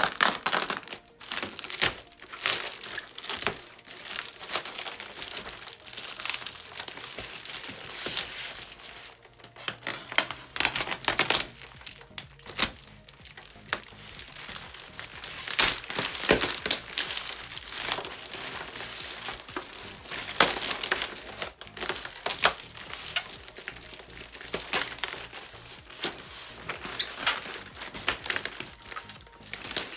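Parcel packaging crinkling, rustling and tearing as a large parcel is unwrapped by hand, in a continual irregular crackle.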